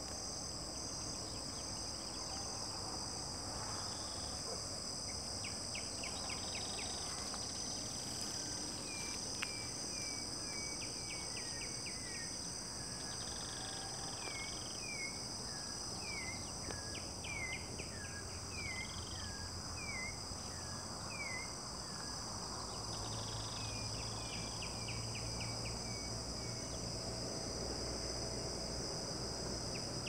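A steady, high-pitched chorus of crickets and other insects, with a bird calling over it in runs of short, downward-slurred whistles and bursts of rapid ticking trills, mostly in the middle stretch.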